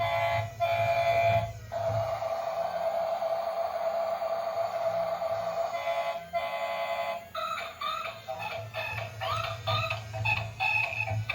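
Electronic background music: a long held synth note, then a run of quick chirpy notes over a pulsing bass.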